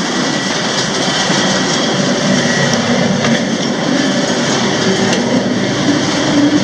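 Freight train rolling along the rails: a steady, loud rumble and rattle of wheels and cars, with a few faint clicks.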